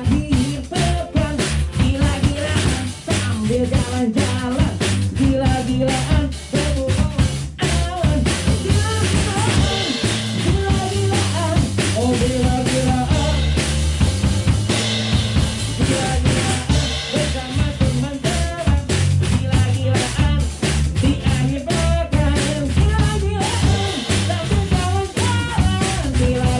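A live band playing the show out: a song with a steady drum-kit beat and a strong bass line.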